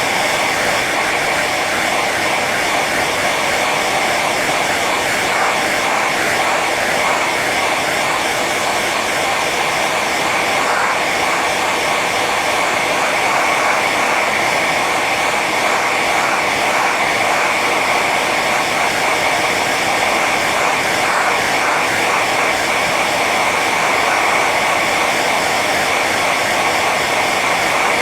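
Hair dryer running steadily on its high setting: an even, unbroken rush of air and motor with a bright hiss.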